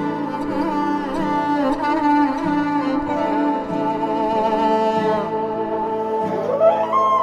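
Background music: a held, wavering melody over a steady low beat of about one and a half beats a second.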